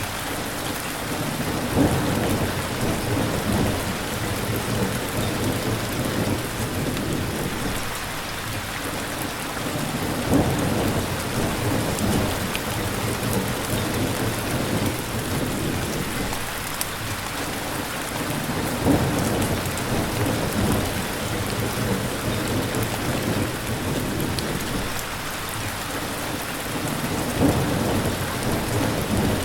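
Steady heavy rain falling, with low rumbles of thunder that swell up about four times, roughly every eight seconds.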